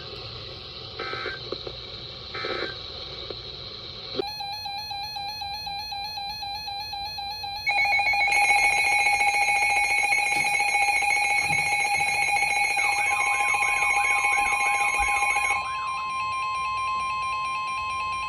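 Emergency alert signals between two broadcast weather warnings. Three short data chirps come about a second and a half apart, then a buzzing data signal. About eight seconds in, a loud steady alarm tone starts; a second, single steady tone joins it about thirteen seconds in and carries on alone after the loud tone stops.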